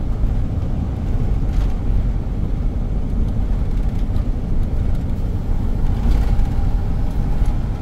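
Steady low rumble of engine and road noise heard inside the cab of a motorhome on the move.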